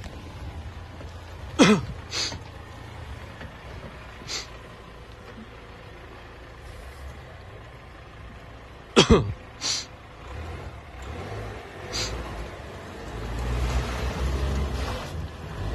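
A vehicle engine running steadily, getting louder near the end. Two loud sharp noises, each sweeping quickly down in pitch, come about one and a half seconds in and about nine seconds in.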